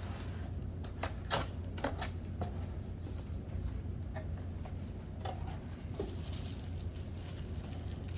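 A cardboard box being opened by hand: a string of short scrapes, clicks and rustles from the box and its packaging, densest about one to two seconds in, over a steady low hum.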